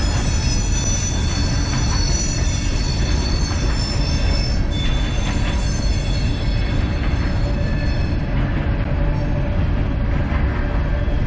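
Loaded coal train's open hopper cars rolling past: a steady heavy rumble of steel wheels on rail, with a high-pitched metallic squeal from the wheels that dies away in the last few seconds.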